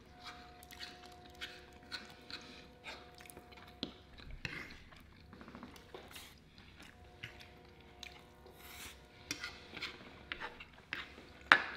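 Eating sounds: metal forks tapping and scraping on food trays and chewing, heard as a scatter of small clicks, with one sharper click near the end. A faint steady hum of a few held tones sits underneath for a few seconds, twice.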